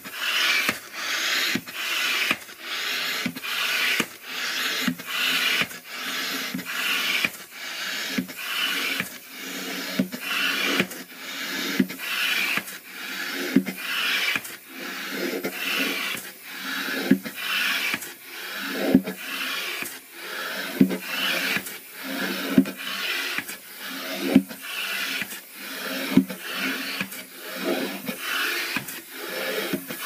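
Hand-operated air pump worked in a steady rhythm of strokes, each a rasping rush of air, inflating a balloon.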